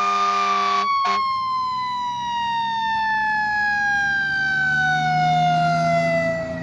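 A siren tone holds steady for a moment, then falls slowly and smoothly in pitch for about six seconds, like a siren winding down. There is a short hiss at the start and a click about a second in.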